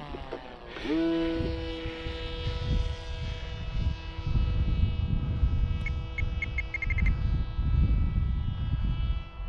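Electric brushless motor (3548, 1100KV) of a Zeta FX79 Buffalo flying wing, driving a 12x6 propeller. Its whine dips, climbs back about a second in as the throttle opens, then holds a steady pitch under power, with wind rumbling on the microphone. A quick run of short beeps about six seconds in, from the radio transmitter's trim switch.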